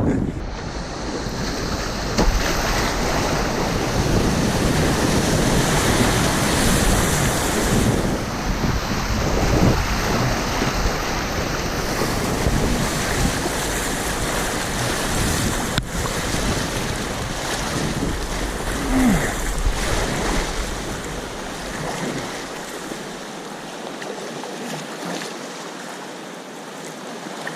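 Rushing river whitewater, a steady hiss of moving water, with wind buffeting the microphone as a low rumble until it drops away near the end.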